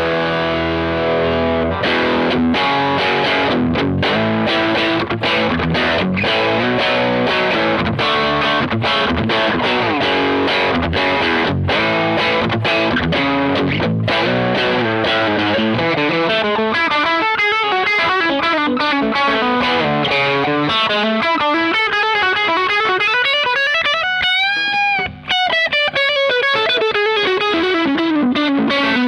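Electric guitar played through a Fender Hot Rod Deluxe IV 40-watt tube combo amp on its overdrive channel, with a distorted tone. Chords are struck with short choked stops for the first half or so, then it moves to single-note lead lines with string bends near the end.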